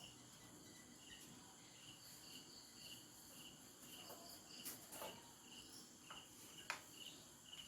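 Faint crickets chirping in a steady rhythm of a few chirps a second over a high, even insect hum, with a few faint clicks about halfway through and again near the end.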